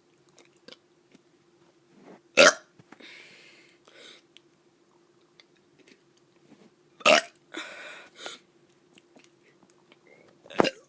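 A kid forcing out three short, weak burps, one at a time several seconds apart, each followed by a brief breath.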